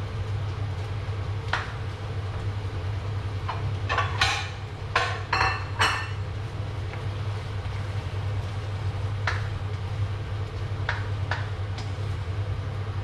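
Spatula clinking and tapping against a wok as sauce is stirred, with a cluster of ringing metallic clinks about four to six seconds in and a few single taps later, over a steady low hum.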